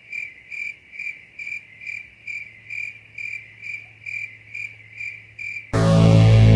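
Cricket chirping sound effect: short, evenly spaced chirps about twice a second. Near the end it is cut off by loud music starting abruptly.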